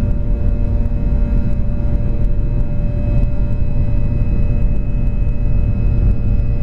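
Jet airliner engines running steadily as heard inside the passenger cabin during a slow ground roll, a constant whine over a heavy low rumble.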